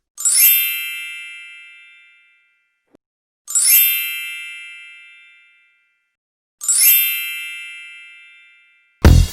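A bright, bell-like ding sounds three times, about three seconds apart. Each strike rings out and fades over about two seconds.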